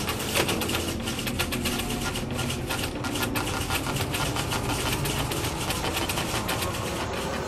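A small machine running steadily, with rapid irregular ticking over a low hum.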